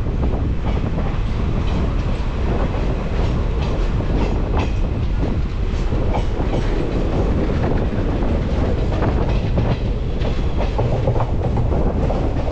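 17646 Repalle–Secunderabad Express passenger train running along the track: a steady rumble of the coaches, with wheels clacking and knocking irregularly over rail joints.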